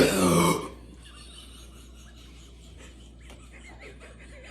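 One short, loud, rough gassy noise from a person, lasting under a second, then only faint room noise.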